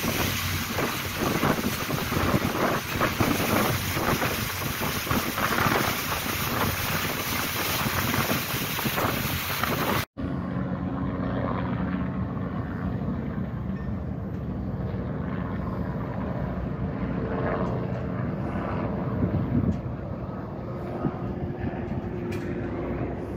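Wind buffeting the microphone on a moving ferry's open deck, with the ferry's wake rushing. About ten seconds in the sound cuts off abruptly and resumes with far less wind, leaving the ferry's engine as a steady low hum.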